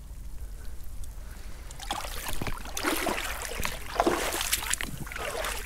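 Shallow seawater sloshing and splashing in a rock pool, in uneven bursts from about two seconds in.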